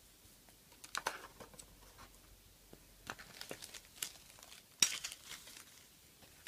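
Clear plastic packaging crinkling, with light clicks as small stationery items are handled and set down. The sounds come in short scattered rustles, the loudest nearly five seconds in.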